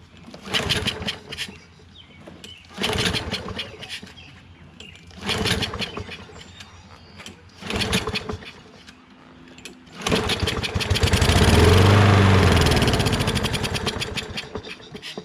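Kohler XT675 single-cylinder mower engine cranked four times with the recoil pull cord without starting, then firing on starter fluid about ten seconds in. It runs for about five seconds, slowing as it goes, and dies out. It will not stay running by itself, a sign that no fuel is getting through, which the owner takes for a dirty carburetor.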